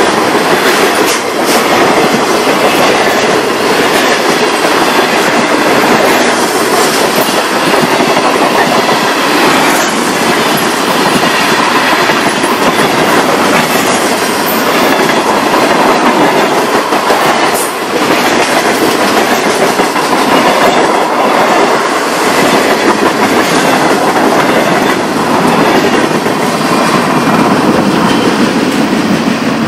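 Freight train cars rolling past close by at speed: a loud, steady rush of steel wheels on rail, with clacks as the wheels cross the rail joints.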